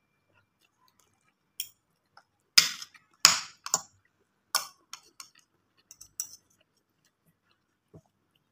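Metal fork and spoon clinking and scraping against a plate while scooping rice: about ten short, irregular clinks, the loudest between about two and a half and four seconds in.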